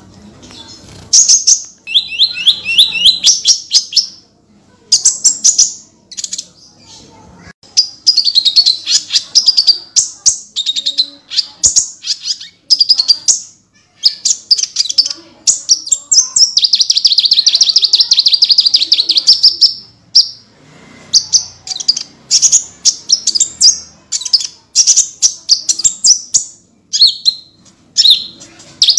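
Kolibri ninja (konin), a small sunbird, singing a rapid, chattering run of high trills and sharp chips, with one unbroken trill held for about four seconds midway: the bird in full, busy song ('gacor').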